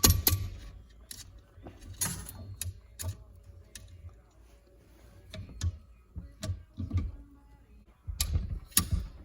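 Irregular metallic clicks and knocks of a valve spring compressor and valve spring being worked on a Farmall F20 cylinder head while a valve is fitted, with louder clusters of handling near the start and near the end.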